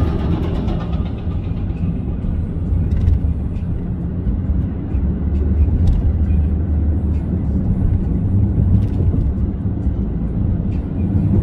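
Steady low rumble of a moving vehicle heard from inside the cabin, with a few faint ticks.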